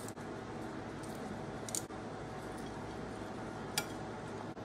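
Metal tongs clicking lightly against a ceramic plate twice as salad is served, over a steady background hiss.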